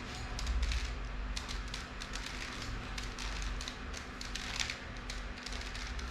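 Plastic 3x3 Rubik's cube clicking in quick, irregular runs as its layers are turned through the right-hand algorithm, over a low rumble.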